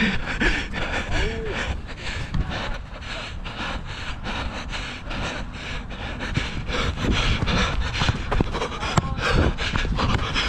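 Running footfalls and heavy breathing picked up by a body-worn camera on a player running across an artificial-turf pitch, with irregular thuds and rubbing on the microphone and faint shouts from other players.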